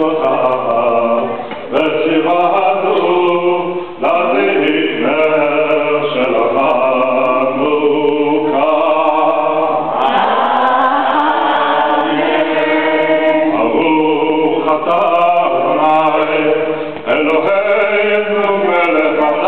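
A group of men and women singing a Hanukkah candle-lighting song together, phrase after phrase with short breaths between.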